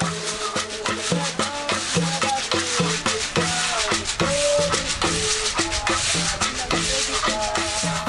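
Folia drums beating a steady rhythm with rattles, with voices singing over them.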